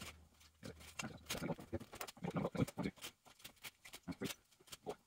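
Craft knife cutting through EVA foam mat along a steel ruler on a cutting mat, with a run of irregular clicks and knocks as the blade and foam pieces are worked.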